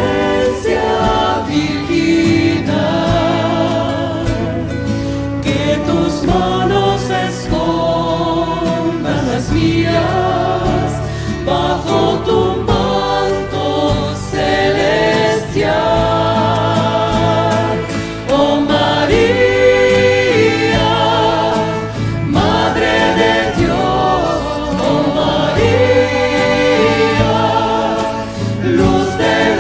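A Catholic hymn to the Virgin Mary, sung by a choir over instrumental accompaniment.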